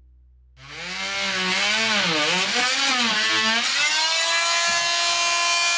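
Corded electric power saw starting about half a second in and cutting a board. Its motor pitch dips and wavers under load, then holds steady from a little before halfway.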